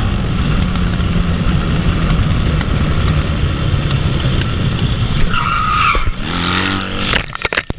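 Motorcycle engine running at road speed with wind rush on an onboard camera. About five seconds in comes a brief tyre squeal as the bike skids, the engine pitch slides, and near the end there is a quick clatter of scraping knocks as the bike goes out of control.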